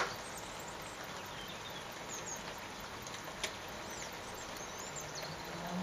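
Steady patter of rain, with faint high chirps of small birds and two sharp ticks, one at the start and one about three and a half seconds in. A low drone comes in near the end.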